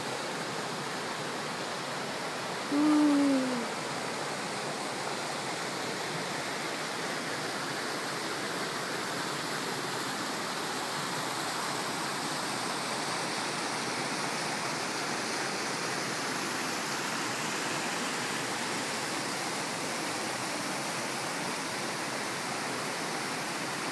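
Steady rush of water from the Minoo waterfall and its stream. About three seconds in, one short, low call that falls slightly in pitch stands out above it.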